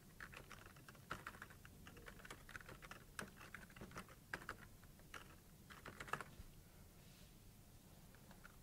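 Faint typing on a computer keyboard: irregular key clicks that stop about six seconds in.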